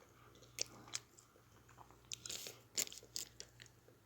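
Someone crunching and chewing snack food close to the microphone: several sharp, short crunches with quiet between them.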